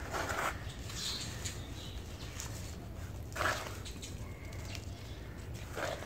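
Lumps of dry red dirt crushed and crumbled by hand in a bucket with some water: three grainy crunches, near the start, in the middle and at the end, over a steady low hum.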